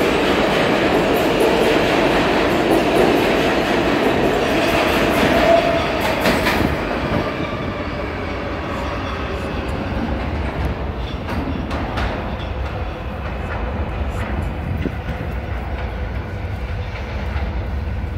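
R142A subway train running out of the station past the platform, loud at first, then fading into the tunnel about seven seconds in, leaving a lower rumble with a few sharp clicks.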